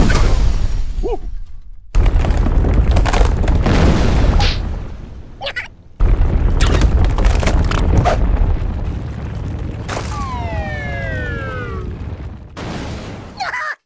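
Cartoon earthquake rumble: heavy low rumbling and booming in long stretches that cut in suddenly a couple of times. About two-thirds of the way through, a falling squeal slides down in pitch over about two seconds.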